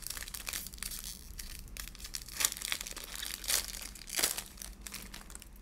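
Foil trading-card pack (Prizm WWE hobby) being torn open by hand, its wrapper crinkling and crackling, with a few louder tears about two and a half, three and a half and four seconds in.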